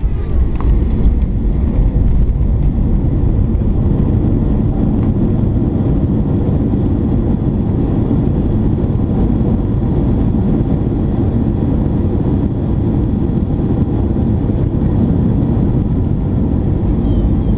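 Steady low rumble of an airliner's engines and airflow, heard inside the passenger cabin during landing.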